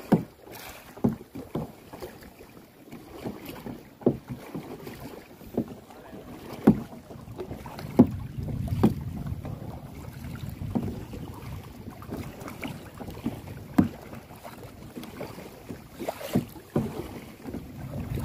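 Kayak paddling: irregular paddle splashes and knocks every second or two, over low wind rumble on the microphone that grows a little louder about halfway through.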